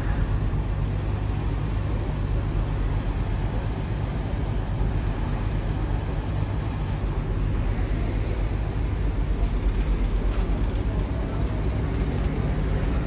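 Passenger ship underway: a steady low hum from its engines, under an even rushing noise of wind and water.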